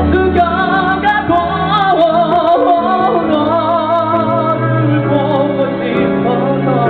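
A singer sings live into a microphone with vibrato on held notes, over sustained band accompaniment with held bass notes.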